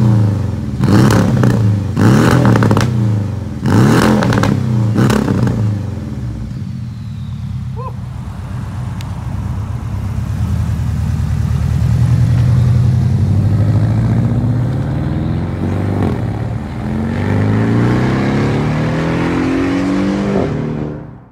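Porsche 718 Boxster S turbocharged flat-four through a Fabspeed Supercup turboback exhaust, revved in several sharp blips in the first five seconds or so, each falling back quickly. It then runs at lower revs and near the end accelerates with a rising note.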